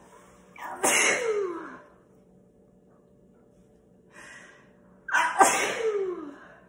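A woman sneezing twice during an allergy attack, each sneeze preceded by a quick in-breath, the first about a second in and the second near the end, with the voice falling in pitch through each.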